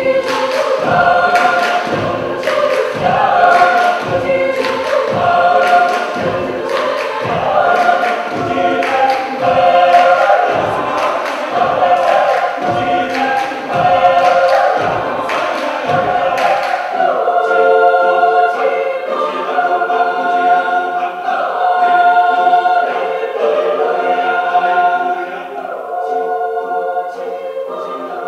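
Mixed choir singing a cappella in close harmony, clapping a steady beat of about one clap a second. About seventeen seconds in, the clapping stops and the choir carries on in sustained chords.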